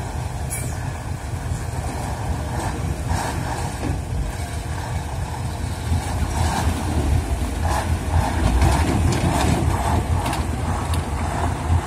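A heavy motor vehicle running, with a steady low rumble and scattered rattles and knocks. It gets somewhat louder about halfway through.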